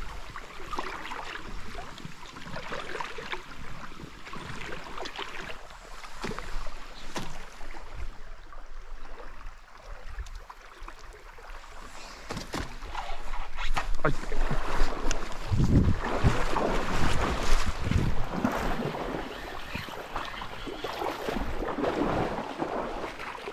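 Shallow river water rushing and sloshing around a wading angler, with bumps of wind on the microphone; louder for a few seconds past the middle.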